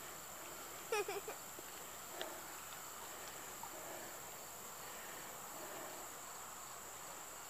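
Insects chirring steadily at a high, even pitch, faint throughout. A brief vocal sound from a person about a second in.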